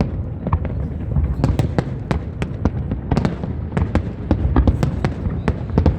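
Aerial fireworks display going off: a rapid, irregular string of sharp bangs and crackles over a steady low rumble.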